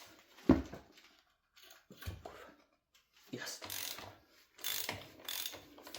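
Socket ratchet working a brake caliper bolt: a sharp knock about half a second in and another near two seconds, then runs of ratchet clicking.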